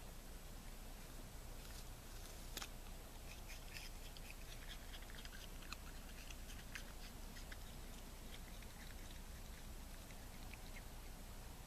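Raccoon eating an apple: faint crunching and smacking as it chews, a run of small clicks from about two seconds in that thins out near the end, over a steady low hiss.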